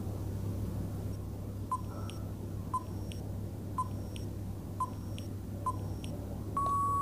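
Countdown timer sound effect: five short beeps about a second apart, then one longer steady beep as the count runs out near the end, over a low steady hum.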